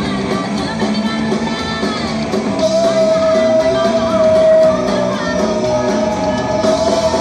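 Rock band playing live: two amplified electric guitars and a drum kit, with a long high note held from about two and a half seconds in.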